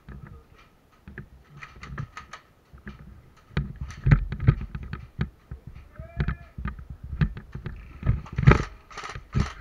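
Footsteps on dirt with irregular clicks and knocks of gear and rifle handling, faint at first, then busier and louder with heavy thumps from about three and a half seconds in.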